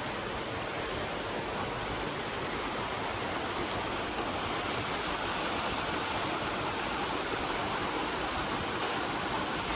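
Waterfall: water falling and rushing in a steady, even noise.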